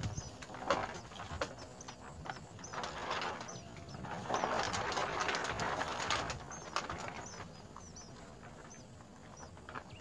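Dry rustling and scratching of nest grass as a small bird shifts about in its nest, heaviest a little before the middle. Short high bird chirps recur every second or so.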